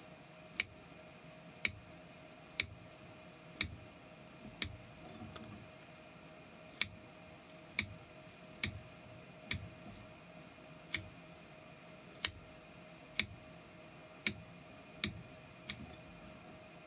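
Curved-blade fly-tying scissors snipping through spun deer hair as a bomber fly's body is trimmed to shape: a sharp snip about once a second, unevenly spaced, over a faint steady hum.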